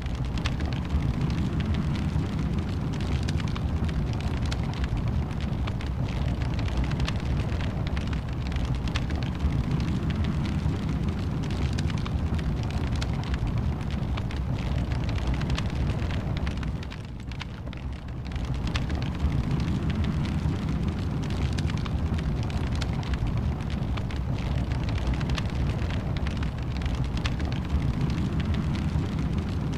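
Wood fire burning in a fireplace: a steady low rumble of flames with dense small crackles and pops throughout. It drops briefly a little past halfway, then resumes.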